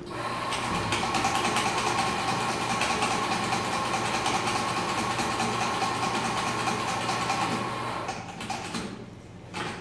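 Espresso machine pump humming steadily as a shot of espresso is extracted, stopping about eight seconds in, followed by a couple of clicks.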